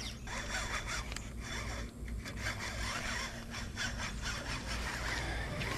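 Baitcasting reel being cranked steadily as a lure is retrieved, a continuous rubbing whir.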